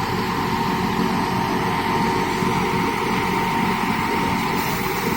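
Atlas 330.1 truck-mounted crane's PTO-driven hydraulic pump running steadily with the engine, a steady hum with a thin whine over it. The hydraulic noise is reduced now that air pressure in the hydraulic tank pushes oil to the pump.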